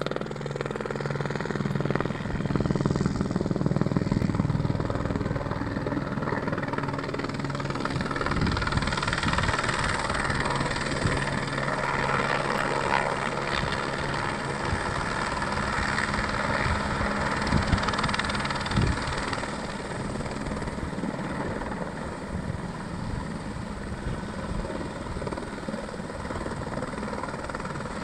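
Firefighting helicopter carrying a slung water bucket, its rotor and engine running as it flies overhead; the sound is loudest in the first half and eases a little after about twenty seconds as it drops lower behind the trees.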